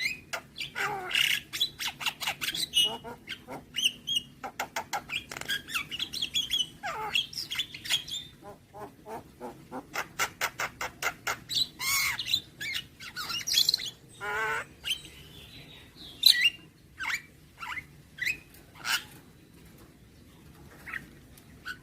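Javan myna singing a varied song of sliding whistles, harsh squawks and rapid clicking rattles, with mimicked fill-in phrases; dense for the first half, then sparser single calls.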